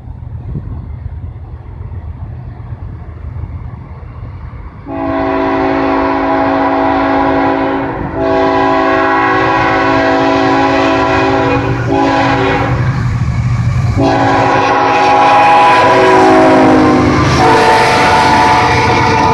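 Diesel freight locomotive's air horn, on a GE Evolution-series locomotive, sounding the grade-crossing signal: two long blasts, a short one, then a long one whose pitch drops as the locomotive passes. Under it runs the low rumble of the approaching train.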